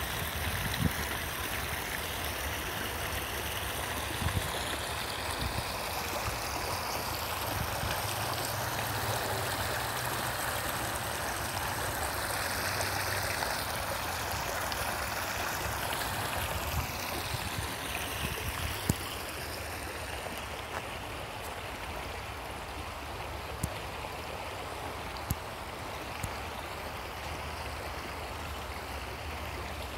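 Stream water running over rocks: a steady rushing that eases a little in the second half, with a few sharp clicks now and then.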